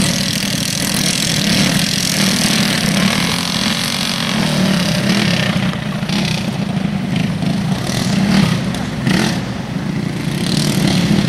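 Several racing go-karts' small engines running together as they lap a dirt track, a steady drone with a wavering engine note.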